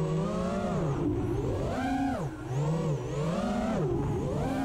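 FPV racing quadcopter's four brushless motors (Hurricane 2207 2500kv) and Gemfan Flash propellers whining in flight. The pitch holds steady at first, then falls and rises several times as the throttle is cut and pushed through yaw turns, with a brief drop in loudness a little over two seconds in.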